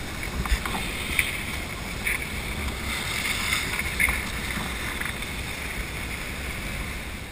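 Skis sliding and scraping over groomed snow, a steady hiss with a few short sharper scrapes, while wind rumbles on the microphone of a camera carried by the skier.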